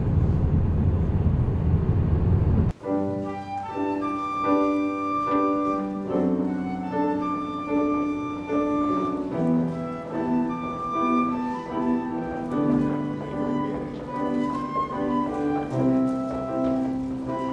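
Low, steady rumble of a car driving, heard from inside, cutting off suddenly about three seconds in. Instrumental music with slow, held melodic notes follows.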